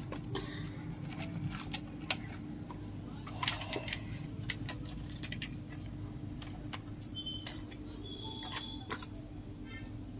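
Scattered light clicks and small metallic clinks from handling phone parts and tools at a repair bench, over a steady low hum. A few short high beeps come about seven to nine seconds in.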